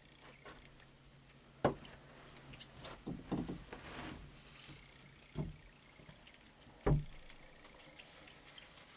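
A few dull thumps with rustling and light knocking between them: one thump a little under two seconds in, a patch of rustling and knocks around three to four seconds, and two more thumps about five and a half and seven seconds in.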